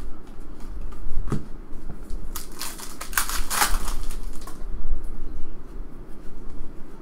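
Clear plastic wrapper of a trading-card pack crinkling as it is torn open, a dense run of crackling from about two seconds in that lasts about two seconds.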